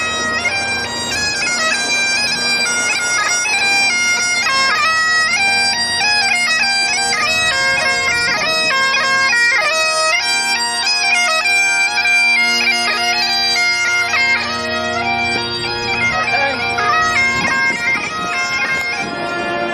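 Bagpipes playing a tune: a quick, ornamented chanter melody over steady drones.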